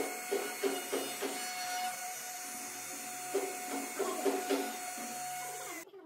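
DeWalt compact router running steadily with a high whine, cutting off abruptly near the end. Light plucked-guitar background music plays over it.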